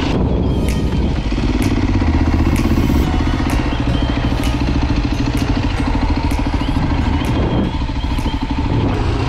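Enduro dirt bike engine running at steady revs, with a few sharp clicks over it and a brief easing of the engine near the end.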